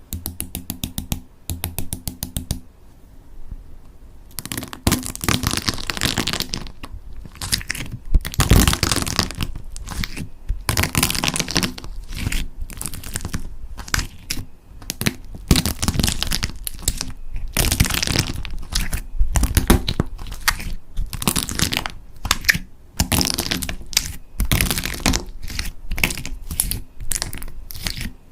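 Slime being worked by hand, giving off dense crackling and popping in clusters that swell and fade.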